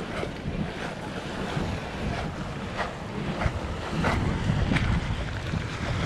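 Wind buffeting the microphone in gusts, over the wash of sea waves on the shore.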